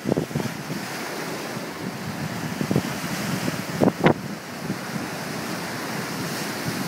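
Wind buffeting the microphone over the steady wash of the sea, with a few short thumps, two close together about four seconds in.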